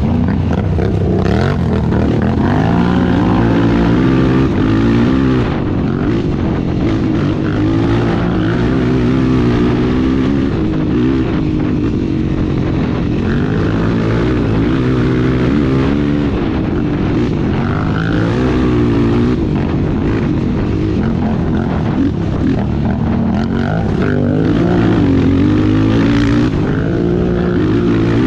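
Dirt bike engine under hard off-road riding, its pitch rising and falling constantly as the throttle is worked and gears change.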